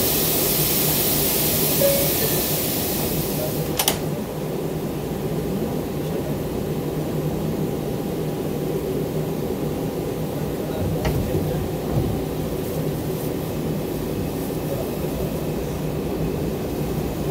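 Inside an R142 subway car: a steady hiss while the doors stand open, then the doors close with a sharp knock about four seconds in, followed by the steady rumble of the car as the train pulls out of the station.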